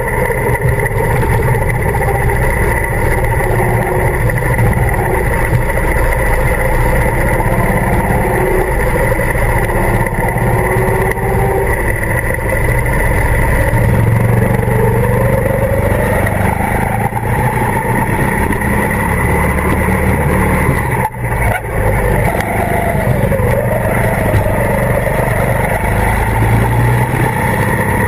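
Go-kart engine running at speed, its pitch rising and falling again and again as the kart accelerates and slows. It briefly dips about three-quarters of the way through.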